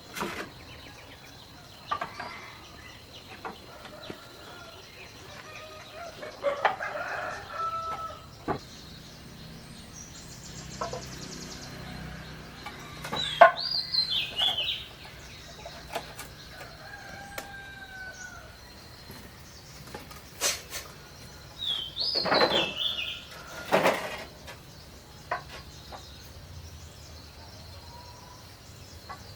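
Domestic chickens clucking, with a rooster crowing twice, and a few sharp knocks in between.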